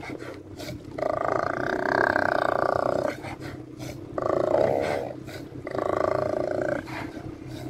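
Steller sea lions roaring: three long roars, each a second or two long, with short pauses between them.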